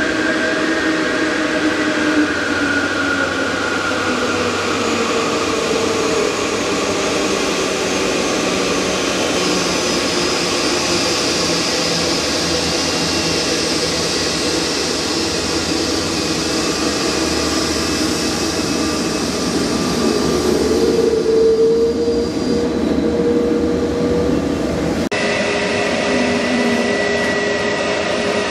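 Jet airliner turbofan engines running at taxi power: a steady whine with several tones that slowly drift in pitch. About 25 seconds in, the sound cuts abruptly to another jet's engine whine with a higher steady tone.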